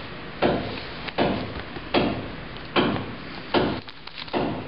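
A steady beat of knock-like percussive hits, about four every three seconds, each dying away quickly.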